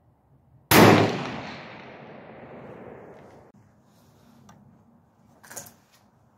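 A single gunshot under a second in, with its echo fading away over about three seconds. A few faint clicks follow near the end.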